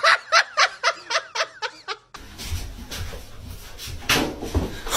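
A person laughing in a quick run of about ten short 'ha' bursts, some five a second, for about two seconds. It then cuts off abruptly into a noisy background with a few soft knocks.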